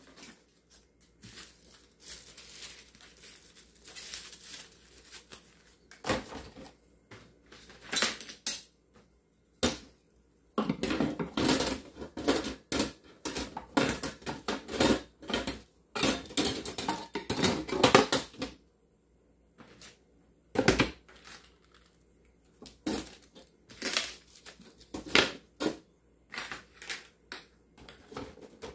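Clatter and knocks of small items being put into and shifted about in a kitchen drawer with wire organizer baskets, with a dense stretch of rattling and rustling in the middle.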